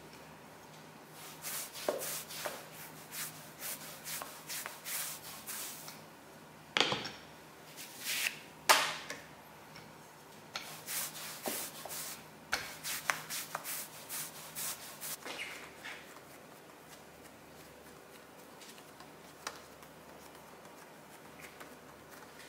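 Marble rolling pin rolling back and forth over soft dough on a silicone baking mat: runs of short rubbing strokes, about two a second, with a couple of louder knocks in the middle. The strokes stop for the last few seconds, leaving only faint scattered sounds.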